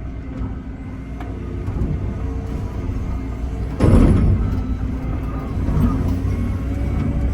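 Excavator running steadily under its diesel engine and hydraulics while it is worked, with a sudden louder rush about four seconds in that fades over half a second.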